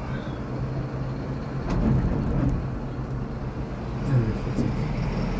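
Inside a moving gondola cabin of an urban cable car: a steady low hum from the cabin travelling along its cable, with a few faint clicks and knocks.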